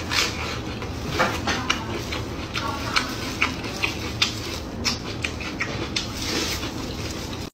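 Close-miked eating: bites into raw red onion and glazed pork, then wet chewing and lip smacks in an irregular stream of small clicks. A low steady hum runs underneath.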